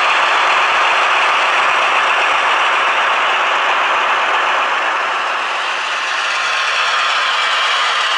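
Piko V 200 model diesel locomotive running along a model railway with its train: a steady rattling whir of motor and wheels on the track, easing a little about five to six seconds in.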